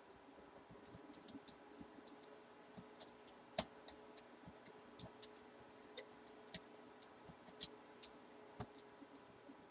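Faint, irregular clicks of a computer keyboard and mouse over a low steady hum, the two loudest clicks about three and a half and seven and a half seconds in.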